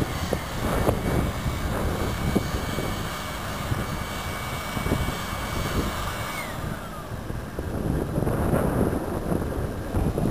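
A moored airship's onboard machinery, which the uploader takes for a compressor, runs with a steady high whine. It is run from time to time to hold the ship's attitude in the wind. About six and a half seconds in, it shuts off and its whine falls in pitch as it spins down. Gusts of wind rumble on the microphone throughout.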